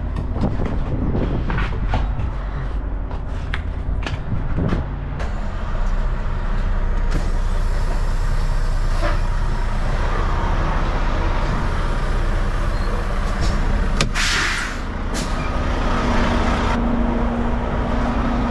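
Semi-truck diesel engine running steadily at low revs, with a few clicks early on and a short, sharp air-brake hiss about fourteen seconds in.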